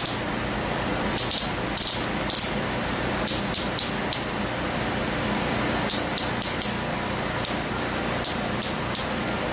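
Ratchet of a long click-type torque wrench ticking in short runs of two to four quick clicks as it is swung back and forth on Ford 460 big-block head bolts, tightening them in the pass up to 105 ft-lb.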